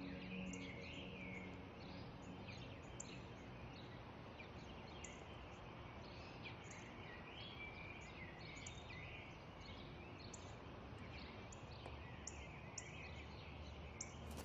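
Small birds chirping, a steady scatter of short calls over a faint outdoor background hiss.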